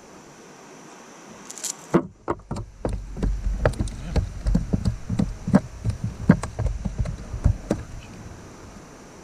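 Irregular clicks, knocks and low thumps of fishing gear being handled in a plastic kayak, starting about two seconds in and dying away near the end.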